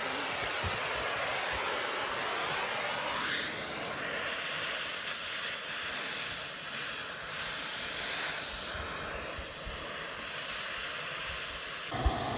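Petrol-oxygen cutting torch (benzorez) burning with a steady hiss as it cuts through thick steel.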